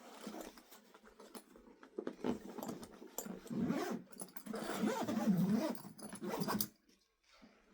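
A dog growling, a low wavering sound that comes and goes over several seconds and stops shortly before the end.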